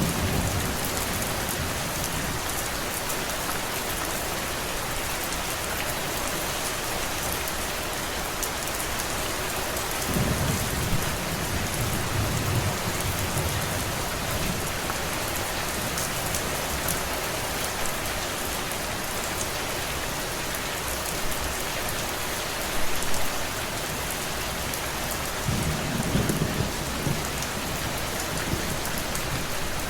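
Steady rain falling as an even hiss, with low rolls of distant thunder swelling twice, about a third of the way in and again near the end.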